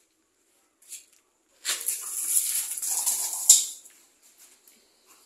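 Gravel crunching and scattering for about two seconds under a German Shepherd's paws as the dog digs in and dashes off, loudest just before it stops.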